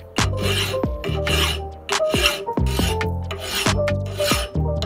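Flat hand file rasping across the steel bit of an axe head clamped in a vise, in repeated push strokes about two a second, sharpening the edge. Background music plays underneath.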